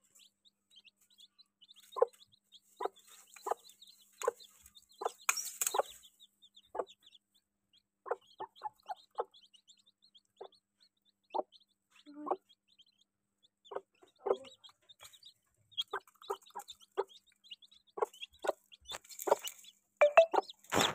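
Aseel mother hen clucking in short, scattered clucks among her newly hatched chicks, which peep in thin high notes. There is a brief rustle of straw bedding about five seconds in and again near the end.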